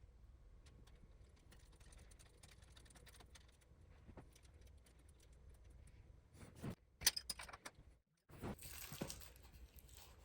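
Faint clicks and clinks of a wrench and small metal hardware being handled while a turn-signal nut is tightened, with a few sharper clicks about seven seconds in.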